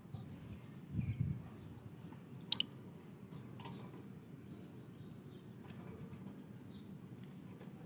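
Lovebirds mostly quiet: a few faint short chirps and scattered small clicks, with a sharp double click about two and a half seconds in, over a low steady hum.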